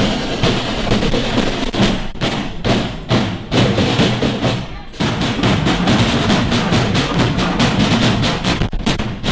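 Marching drum band playing, its drums keeping a steady beat of about two to three strokes a second, with a brief dip about five seconds in.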